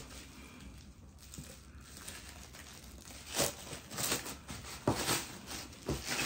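Packaging crinkling and rustling as a box is handled and opened, in irregular bursts starting about three seconds in.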